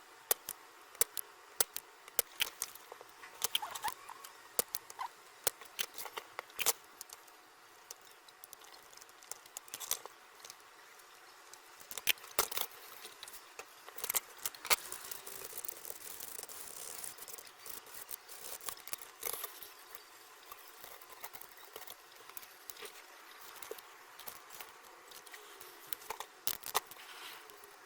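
Irregular sharp clicks and taps of small tools and parts being handled, a few times a second, some louder than others, over a faint steady hiss.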